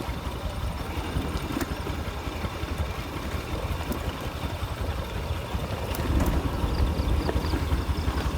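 A vehicle engine idling with a low, steady rumble, a little louder from about six seconds in.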